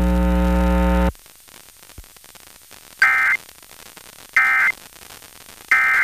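A steady hum with many overtones cuts off about a second in, leaving low hiss and a faint click. Then come three short, harsh digital data bursts about 1.4 seconds apart: the Emergency Alert System end-of-message (SAME) code that closes the required monthly test broadcast.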